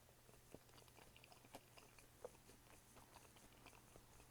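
Faint chewing, with soft clicks of the mouth and food scattered throughout.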